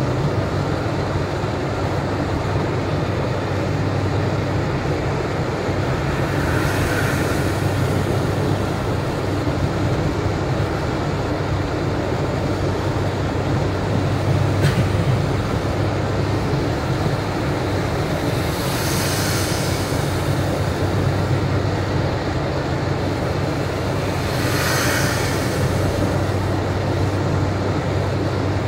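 Steady road noise heard from inside a car driving on a rain-soaked highway: a low rumble of tyres and engine with the hiss of wet tyres. Three brief swishes rise over it, and there is one sharp click about halfway through.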